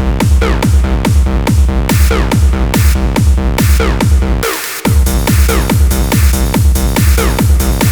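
Electronic dance music with a steady kick drum, about two beats a second. The bass and drums drop out briefly a little past halfway, then the beat comes back in.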